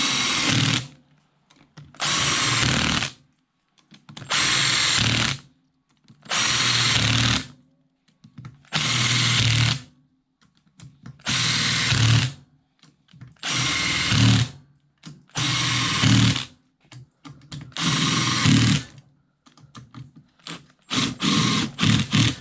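Cordless impact driver running down the crankcase bolts of a Yamaha YFZ450R engine one after another: about nine runs of roughly a second each, about two seconds apart, then a few quick short bursts near the end as the last bolts are snugged.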